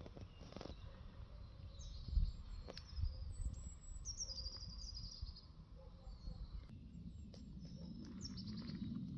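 Songbirds singing: short, high chirps and quick falling trills, several times over, above a low rumble of wind or handling noise on the microphone with a dull thump about two seconds in.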